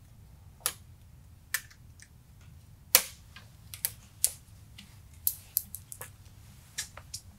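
Irregular sharp clicks from hands working electrical connectors and a zip tie on the motor's wiring harness, the loudest about three seconds in.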